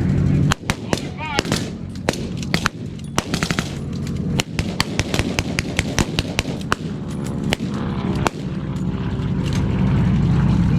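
Reenactors' blank gunfire from rifles and machine guns: irregular single shots with a quick burst about three seconds in, over the steady drone of an aircraft engine passing overhead. The shooting stops about eight seconds in and the engine drone carries on.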